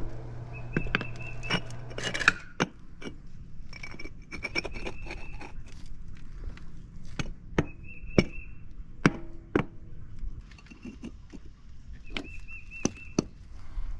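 Rubber mallet tapping brick pavers down into their sand bed: a string of sharp knocks at irregular intervals, several in quick succession.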